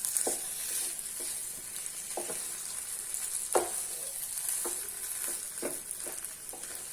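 A spoon stirring and scraping broken-wheat upma in a hot pan, knocking against the pan about once a second, over a steady high hiss.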